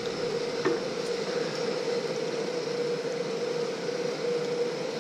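Steady machine hum holding one even tone, with a faint click about two-thirds of a second in.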